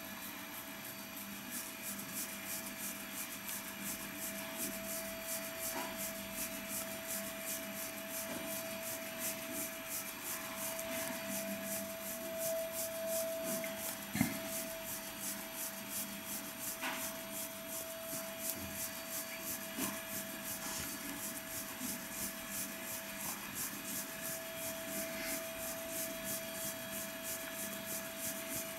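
White cotton gloves rubbing against a watch's rubber strap and case as it is handled and turned, with a couple of light knocks. Under it run a steady tone and a fast, even, faint ticking.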